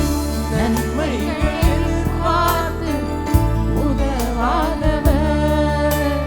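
Tamil Christian worship song: a singer's voice wavers with vibrato over instrumental accompaniment. The accompaniment has sustained bass notes and a regular beat, with a hit about every second and a half.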